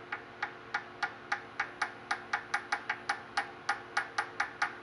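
A part in a lathe fixture being tapped lightly and quickly, a run of sharp ticks about five a second, to nudge it toward centre against a dial indicator.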